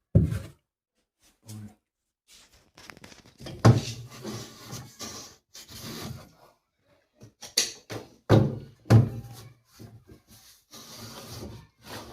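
Irregular knocks, thunks and scraping of a hand and screwdriver working inside the plastic spin-dryer tub of an LG semi-automatic washing machine, freeing a sock jammed in its drain outlet that kept the spinner from draining.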